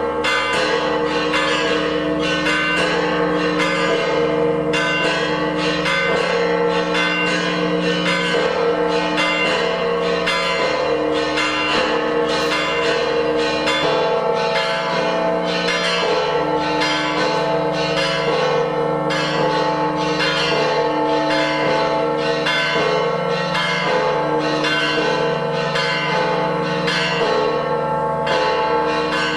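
Several church bells ringing together in a continuous peal, with rapid strikes overlapping and their tones ringing on between them.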